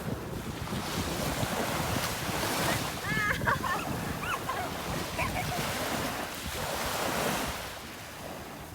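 Waves washing onto a beach, with wind buffeting the microphone; the surf swells and fades near the end. A few short high calls cut through in the middle.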